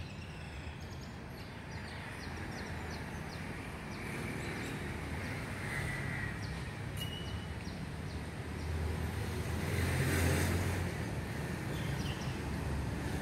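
Outdoor street ambience: wind buffeting the microphone as a steady low rumble, which swells louder about nine to eleven seconds in.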